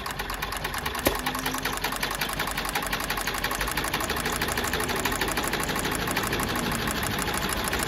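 Consew walking-foot cylinder-bed industrial sewing machine running steadily, stitching through thick canvas with a rapid, even clicking rhythm. There is one sharper click about a second in.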